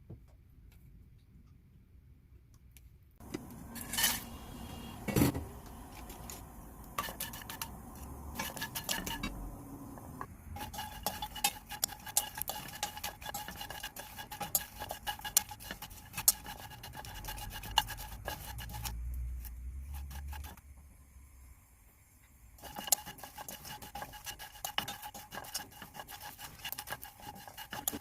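Kitchen prep sounds: dishes and utensils being handled, with many small clicks and knocks, starting about three seconds in.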